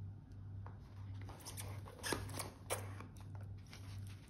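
Hands handling a stainless steel wristwatch in its presentation box: light rustling and handling noise, with two sharp clicks a little over two seconds in. A low hum runs underneath.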